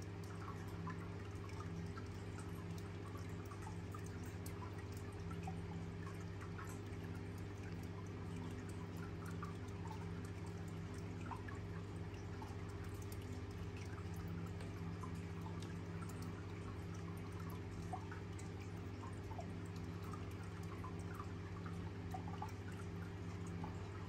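Steady low hum with faint, irregular water drips scattered throughout.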